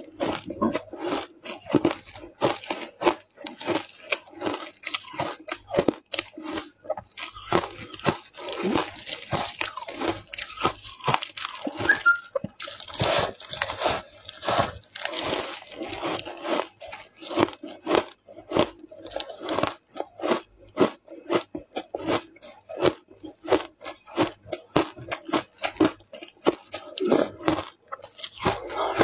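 Ice being bitten and chewed: chunks of matcha-powdered ice crunched between the teeth in quick, crisp crunches, a few a second. The crunching gets denser about a quarter of the way in and again around the middle.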